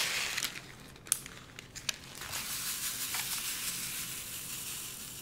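Small plastic bag of resin diamond-painting drills crinkling with a few sharp clicks, then the drills shaken in a plastic sorting tray with a steady rattling hiss for a few seconds.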